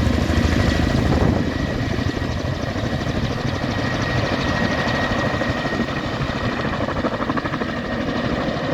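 Firefighting helicopter flying, its rotor making a fast, steady chop, with a steady high whine running under it.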